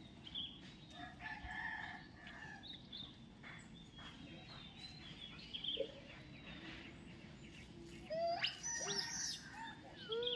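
Small birds chirping in scattered short notes. About eight seconds in comes a louder burst of high calls that rise steeply and arch in pitch.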